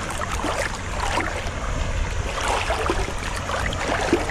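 Footsteps wading through shallow tide-pool water, a run of small irregular splashes and sloshes, over a steady low rumble of wind on the microphone.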